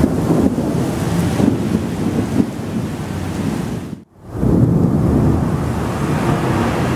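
Thunderstorm: rain and wind with a heavy low rumble, the storm noise buffeting the microphone. The sound drops out abruptly for a moment about four seconds in, then comes straight back.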